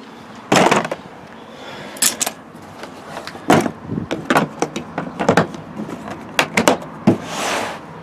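Hard plastic tool case being handled and set down in a vehicle's cargo area: a series of sharp knocks and thuds, with a short scraping hiss near the end.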